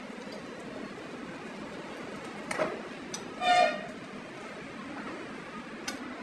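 Steady workshop background noise with a few sharp metal clinks, and a loud, short pitched beep about three and a half seconds in.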